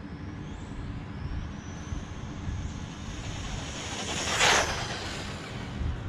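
WLtoys 124019 RC car's brushed electric motor whining at full throttle on a speed run, rising in pitch as it gathers speed. A short, loud rush of noise comes a little past the middle.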